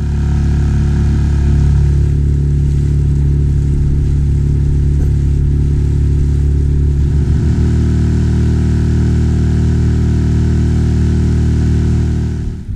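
A 6 hp outboard motor running steadily under way, pushing an inflatable boat, with a hiss of wake water and wind over it. The engine note holds even, shifting slightly about halfway through.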